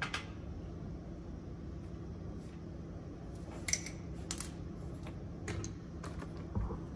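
Small metal tools and fuel pump parts being handled, giving a few scattered sharp clicks and clinks over a steady low hum.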